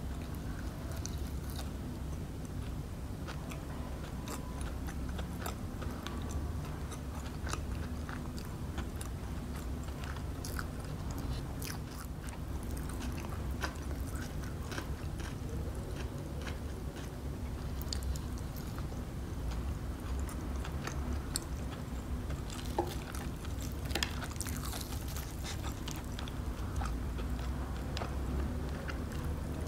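Close-up chewing and biting of crispy KFC fried chicken, with many small, sharp crackles from the breaded coating. Now and then there are softer sounds of the meat being torn apart by hand.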